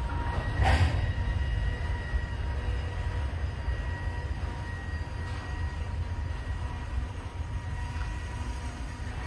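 Double-stack intermodal container train rolling slowly past as it comes to a stop: a steady low rumble of wheels on rail. A faint steady high-pitched whine runs over it, and there is one short burst of noise about a second in.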